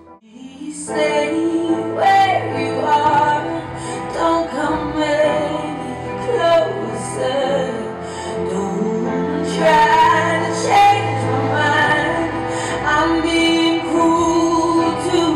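Song with singing over a steady bass line, starting about a second in after a brief near-silent gap.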